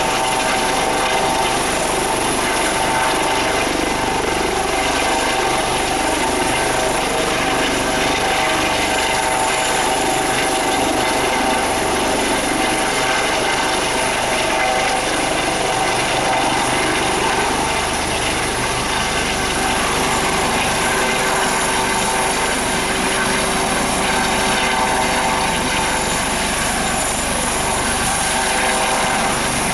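HH-65 Dolphin helicopter hovering: its twin turboshaft engines and rotors run at a steady loud level, with a steady whine over the rotor noise.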